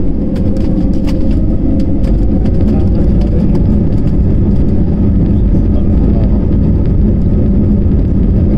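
Cabin noise inside an Airbus A320-family airliner taxiing: a steady, loud low rumble of the jet engines at low thrust and the wheels rolling over the taxiway, with a faint hum held at one pitch.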